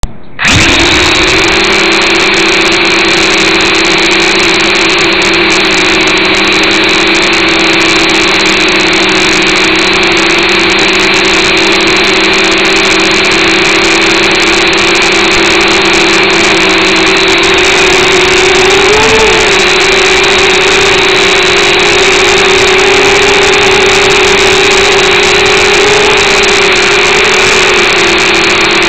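Eachine H8C mini quadcopter's four motors and propellers whining loudly, heard close up through the drone's own onboard camera microphone. They spin up just after the start and then hold a steady pitch, with brief wobbles and small shifts in pitch in the second half as the throttle changes in flight.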